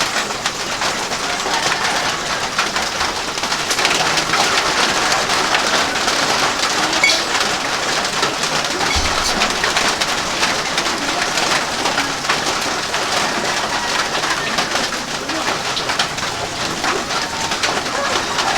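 Steady rain falling on surfaces, a dense patter of drops, with birds calling now and then through it.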